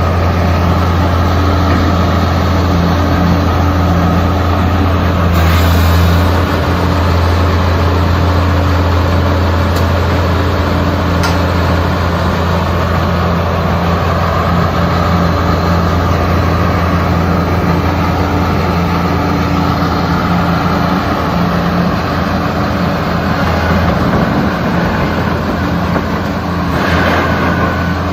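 Diesel engine of an XCMG XS223J 22-ton sheepsfoot road roller running steadily with a strong low hum. There is a brief louder surge about six seconds in and another near the end.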